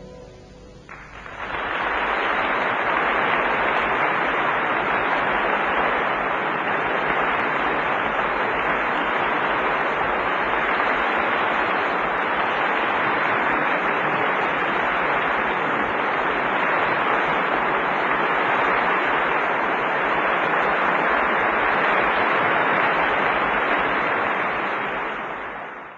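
The orchestra's last chord dies away, and about a second in a concert audience breaks into steady applause that fades out near the end.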